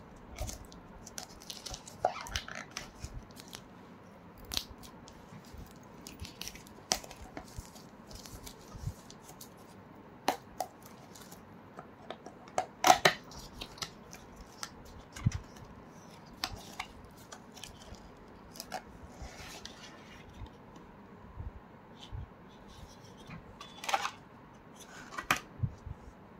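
Product packaging handled and opened by hand: irregular clicks, taps and short rustles of cardboard and plastic, loudest a little before the middle.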